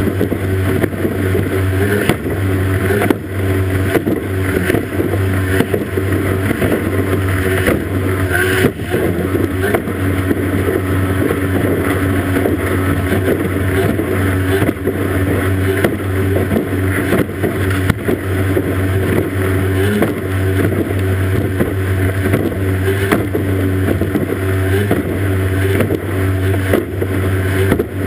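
Racing outboard motor on a powerboat running at steady high revs flat out, over the rush of spray and wind, with a few sharp knocks.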